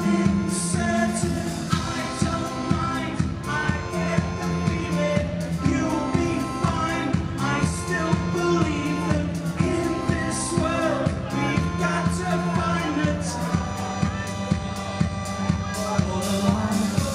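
Live pop-rock band playing: electric guitar, bass and a steady drum beat, with singing over it.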